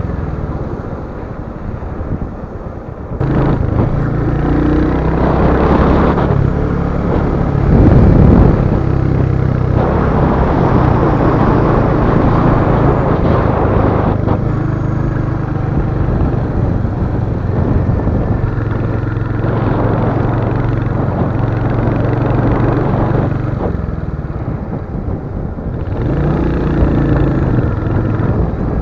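Royal Enfield Hunter 350's single-cylinder engine running under way, with wind and road noise. The engine note eases off and picks up again about three seconds in and again near the end.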